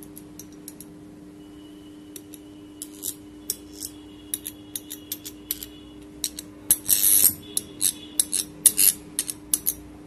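Energised ceiling-fan stator winding, fed through a series test bulb, humming steadily. A metal tool clicks and taps against the stator's iron core as the magnetism pulls at it; the clicks begin about three seconds in and are loudest in the second half. The coil is making a magnetic field, a sign that the winding is sound and the fan will run.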